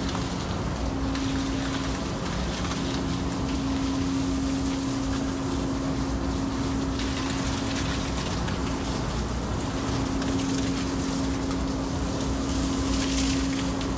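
Steady hum of a ship's machinery with one constant tone that fades out and back a few times, over an even rushing noise like running water.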